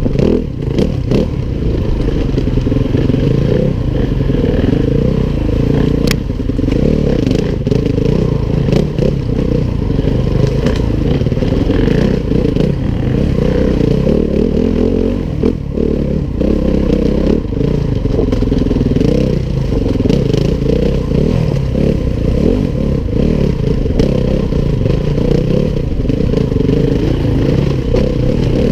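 Yamaha WR250F single-cylinder four-stroke dirt bike engine running through constant throttle changes on a rough trail, its pitch rising and falling. Clatter and knocks from the bike over rocks and ruts run through it.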